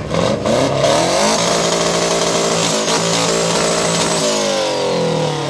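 Subaru Impreza's flat-four engine revved: the pitch climbs over about a second, is held high and steady for about three seconds, then falls away, with a faint high whine riding on top of it.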